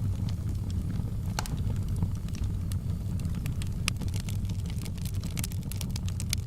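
Wood fire burning in a fireplace: a steady low rumble of the flames with scattered sharp crackles and pops, coming more often toward the end.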